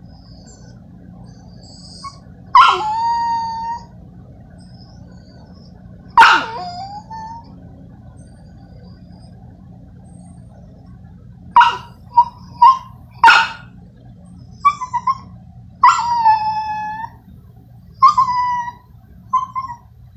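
Dog whimpering and whining: a series of high-pitched whines, some short and sharp, others drawn out for about a second and falling in pitch at the end, clustered most thickly in the second half.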